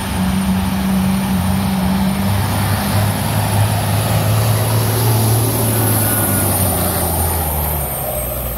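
Pulling semi truck's diesel engine running hard under load, a loud, steady, deep drone as it drags a weight-transfer sled down the track.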